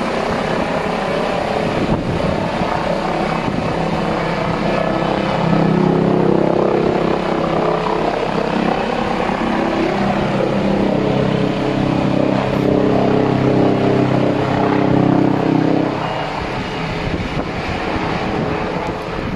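Helicopter flying low overhead, its rotor and engine making a continuous noise over a steady hum that swells about five seconds in and eases off around sixteen seconds.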